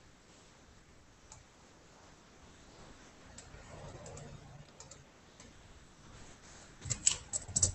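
Faint, scattered clicks of a computer mouse and keyboard, with a quick run of louder clicks near the end.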